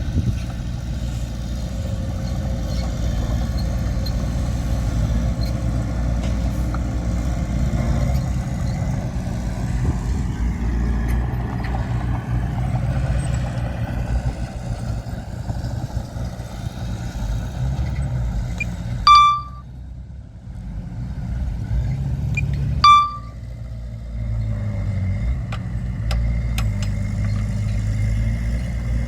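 Heavy diesel earthmoving machinery running steadily. About two-thirds through come two brief, loud, high-pitched ringing sounds a few seconds apart, and the engine noise drops for a couple of seconds after each.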